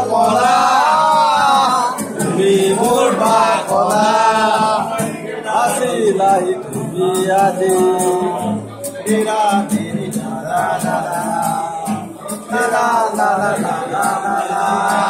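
Men singing together into a microphone, amplified through a PA.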